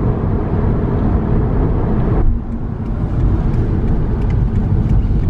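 Steady low road and engine rumble inside a moving car. The hiss above it drops away suddenly a little past two seconds in.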